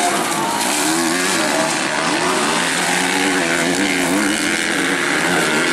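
Several 250cc motocross bikes racing together, their engines revving up and down over one another.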